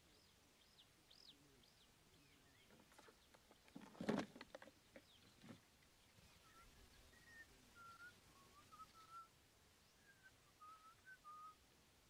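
Faint small-bird chirps and short whistled calls. About four seconds in, a brief clatter as the cardboard-box bird trap's lid snaps shut.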